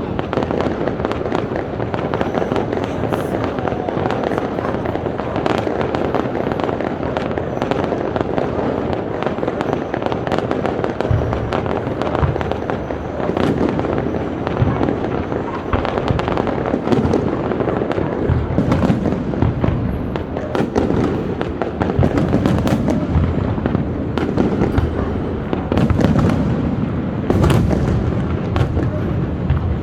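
Large aerial fireworks display: a dense run of crackling and bangs from bursting shells, with deeper booms joining in about eleven seconds in.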